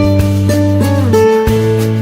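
Background music: a plucked-string, guitar-like tune over a steady bass, with the chord changing about a second in.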